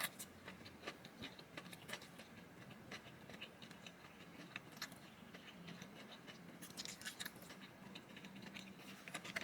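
Faint eating sounds: scattered small clicks and smacks of someone chewing a sandwich, with a denser cluster a little after halfway.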